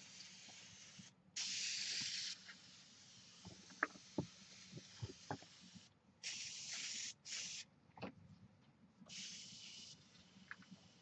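Preval aerosol spray gun spraying leather dye in four short hissing bursts, the longest about a second, laying down a light coat. Small clicks and taps come between the bursts.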